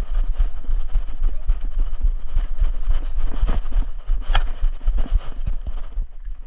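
A person running on dirt and grass: a quick, irregular run of footfalls, with gear and the body-worn camera jostling and a low rumble on the microphone.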